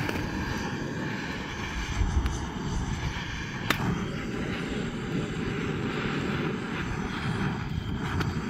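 Handheld propane torch burning with a steady rushing hiss, its flame held into paper and kindling to light a wood fire. One sharp crack a little under four seconds in.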